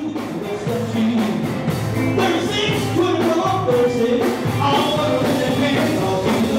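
Live blues band playing with a singer, over a steady beat.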